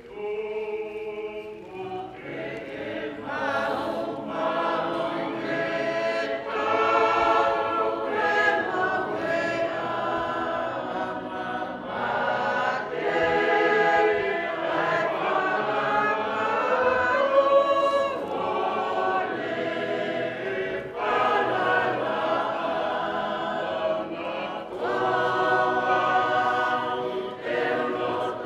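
A church congregation singing a hymn together, many voices holding long notes.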